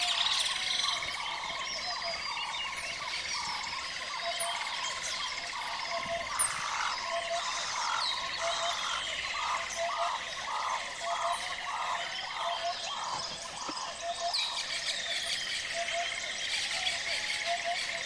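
Forest ambience of birds calling with short falling whistles and chirps, over a steady high buzzing drone and a regular pulsing call that runs for several seconds in the middle.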